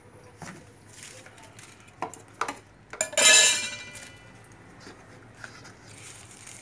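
Small metal items clinking on a stainless-steel counter, with a few light knocks and then a loud ringing metallic clatter about three seconds in that dies away within a second.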